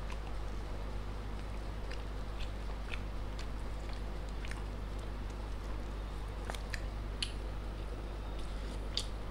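Soft chewing and mouth clicks close to the microphone, scattered a few at a time over a steady low hum.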